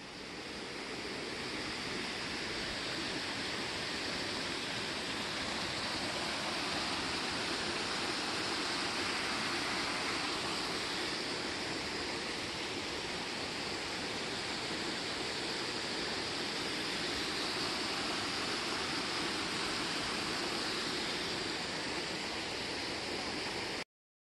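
Steady rush of water in a brimming stone irrigation canal, spilling over the canal's edge. It fades in at the start and cuts off suddenly near the end.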